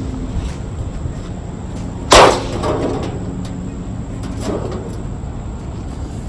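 Microwave oven being smashed: one loud clanging impact about two seconds in, ringing briefly, then a lighter knock a couple of seconds later, over a steady low hum.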